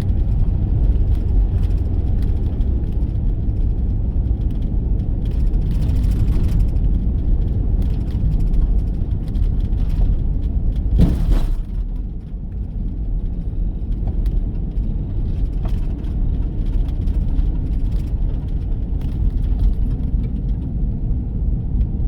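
Car driving, a steady low rumble of road and engine noise heard from inside the vehicle, with a short louder bump about halfway through.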